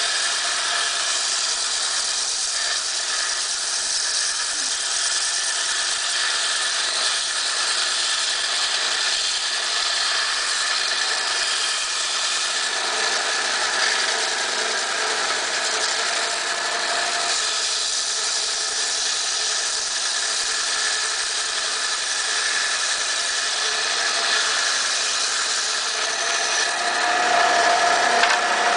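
Inland DFS-100 diamond band saw running steadily while a coral frag on its rock base is pushed through the blade. The cut gives a grinding hiss with a faint steady whine, a little louder near the end.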